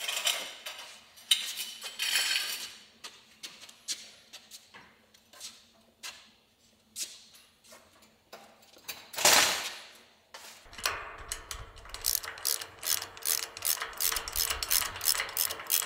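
Irregular metal clatter and scraping, then from about 11 seconds in a steady run of ratchet clicks, about three a second, over a low hum.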